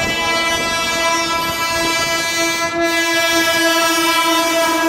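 Electric locomotive's horn sounding in one long steady blast as it approaches at speed.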